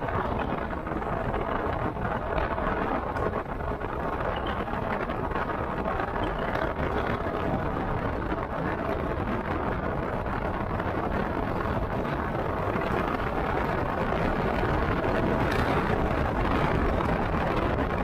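Steady wind and riding noise from a motorcycle moving at speed, picked up by a DJI Osmo Action camera's built-in microphone during a test of its wind noise reduction. The noise holds level throughout, growing slightly louder in the last few seconds.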